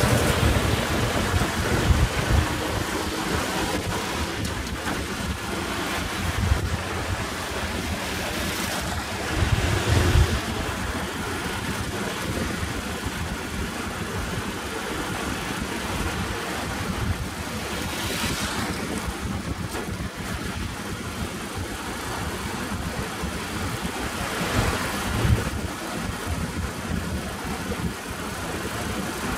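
Motorcycle riding at road speed: wind rushing over the microphone above the engine and tyre noise, with a few brief louder swells.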